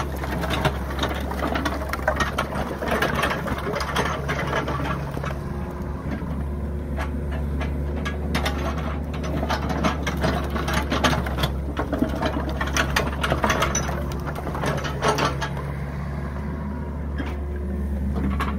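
New Holland 50.2 mini excavator's diesel engine running steadily while its bucket works a heap of split firewood, with repeated clatter and knocks of logs tumbling against each other.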